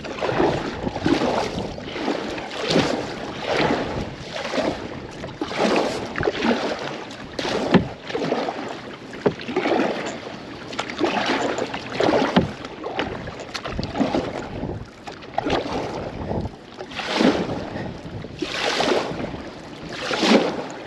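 Kayak paddle strokes splashing and swishing through river water in a steady rhythm, about one stroke every second and a half, with wind on the microphone.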